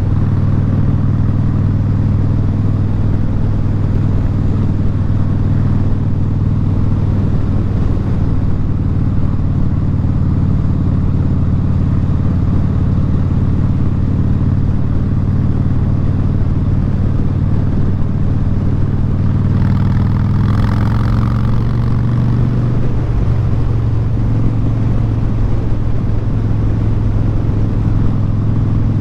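A 2017 Harley-Davidson Street Bob's V-twin engine running loud through Vance & Hines Short Shot exhaust pipes, at a steady cruise on the road. The note holds even, stepping slightly higher about twenty seconds in.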